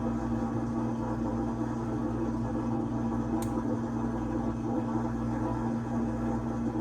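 GE Select GSD3732D01WW dishwasher running with a steady motor hum, and a single brief click about three and a half seconds in.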